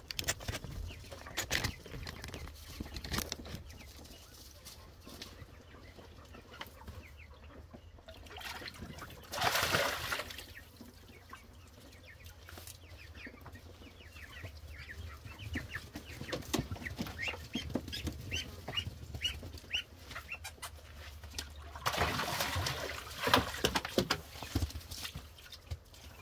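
Poultry calling in short, quickly repeated notes, thickest in the second half, with two louder rushes of noise, one about ten seconds in and one near the end.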